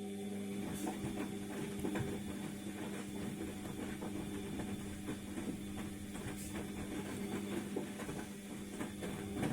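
ATLANT washing machine's motor turning the drum in a wash cycle: a steady hum with a rattle of the tumbling load, starting up and cutting off after about nine and a half seconds.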